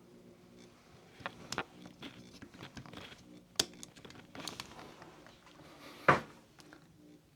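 Small plastic clicks and ticks as the parts of a Quansheng handheld radio are pressed back into its plastic case, with one louder click about six seconds in.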